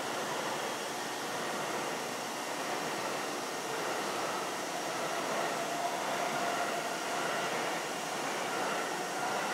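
Steady rushing hum of a railway station platform, with a faint whine coming in about four seconds in.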